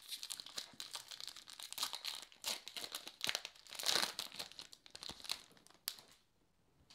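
Foil-lined baseball card pack wrapper being torn open and crinkled by hand: a dense run of crackling rustles, loudest about four seconds in, that stops after about six seconds.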